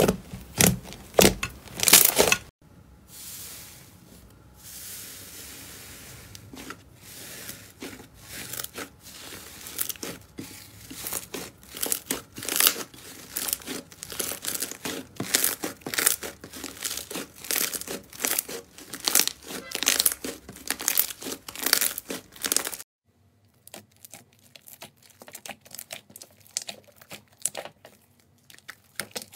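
Hands squeezing, pressing and stretching slime: sticky crackling and popping made of rapid clicks. The clicks are loud for the first couple of seconds, softer for a few seconds, then build again, and they turn sparser and quieter near the end.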